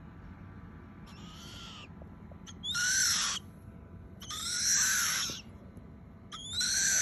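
Spix's scops owl chicks giving harsh, hissing food-begging calls at feeding time. A faint call comes about a second in, then three louder ones, each about a second long.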